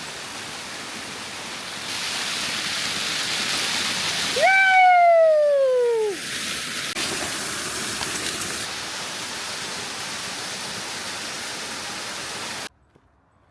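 Steady rushing noise of a waterfall. About four seconds in, one long cry falls in pitch. The rushing noise cuts off abruptly near the end.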